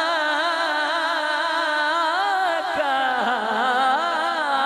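Male naat reciter singing a long, wavering melismatic line, the sung words drawn out into held, ornamented notes.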